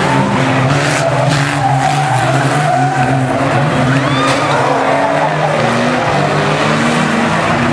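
Several banger racing cars' engines revving hard together as the pack goes through a bend, with tyres squealing and skidding on the tarmac.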